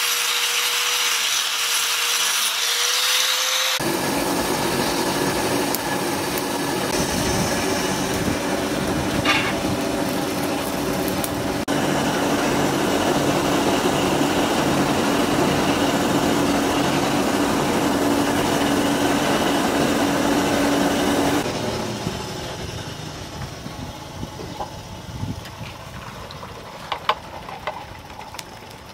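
An angle grinder with a flap disc grinding a steel blade made from a chainsaw bar, a steady whine over hiss, for about the first four seconds. After a cut comes a steady rushing drone with a low hum while the blade heats in a coal forge. About twenty-one seconds in this drops away to quieter crackling and a few sharp clicks as the hot blade sits in a flaming oil quench.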